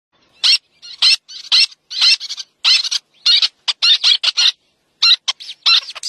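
Small terns calling: a quick series of short, sharp, high-pitched calls, two to three a second, with a brief pause about four and a half seconds in.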